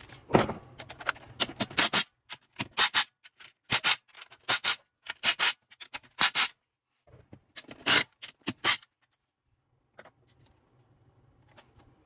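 Metal parts of a transfer case clicking and scraping as they are worked by hand, in a run of short, sharp bursts that stops about nine seconds in, with one last click a second later.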